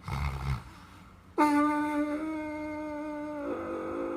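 Sleeping, dreaming dog: a short low snore, then about a second later a loud, long, steady whining howl that shifts pitch partway through and is still going at the end.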